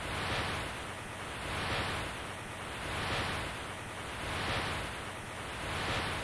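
Synthesized rushing noise like surf or wind, an intro sound effect, swelling and fading evenly about every second and a half.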